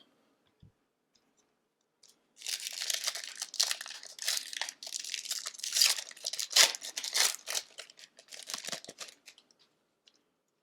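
A foil hockey card pack wrapper being torn open and crinkled, a dense crackling that starts a couple of seconds in and stops about a second before the end.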